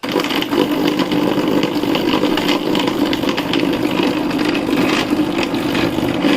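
Food processor motor switching on abruptly and running loud and steady, grinding sticky pitted dates with an irregular clatter from the jar; the cook later takes the trouble for too many dates packed into the small jar.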